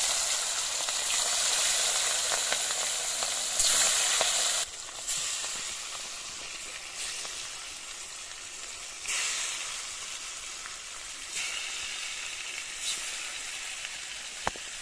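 Rohu fish pieces sizzling as they fry in hot oil in an aluminium kadai. The sizzle is loudest for the first few seconds after the fish goes into the oil, then settles to a steadier sizzle with a few brief flare-ups. There is a single sharp tap near the end.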